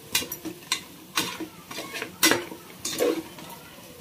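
A slotted metal spatula scraping and knocking against the inside of a pressure cooker as mutton masala is stirred, with sharp, unevenly spaced strokes a few times a second. A low sizzle of the frying masala runs underneath.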